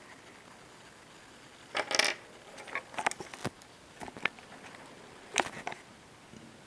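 Handling noise from work on the TV: a short rustle about two seconds in, then a string of sharp small clicks and clinks, as of small metal parts or tools being handled.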